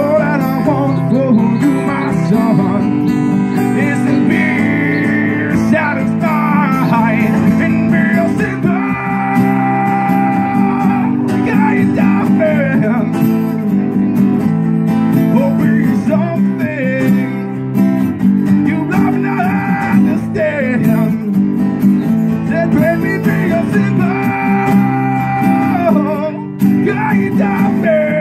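Live guitar duo: an acoustic guitar strumming chords with a second guitar, amplified, and a melody line above them that slides and bends. The music dips briefly near the end before carrying on.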